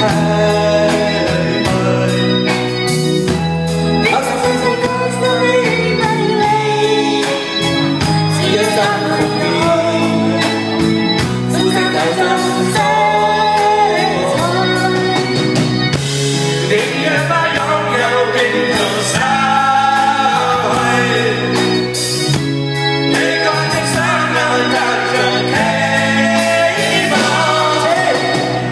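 Live band playing a pop-rock song with electric guitars, drums and keyboard, with several singers singing together into microphones over a steady drum beat.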